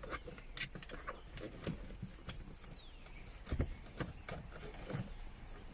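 Irregular clicks and knocks of plastic interior trim and a USB cable being handled and pushed through a tight gap in a car's centre console. Faint bird chirps sound in the background.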